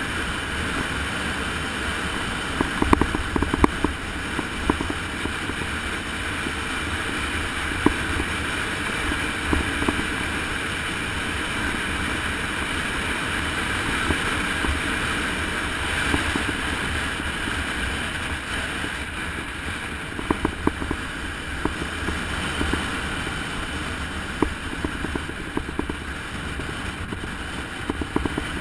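Wind rushing over the microphone of a camera on a road bike at descending speed, over a low steady road rumble. Scattered sharp clicks and rattles come in clusters, about three seconds in and again through the last third.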